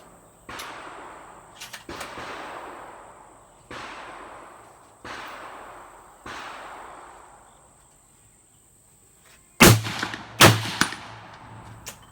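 Gunshots with long echoing tails, about one every second and a half, then two much louder, sharper shots close together near the end, followed by a few light metallic clicks.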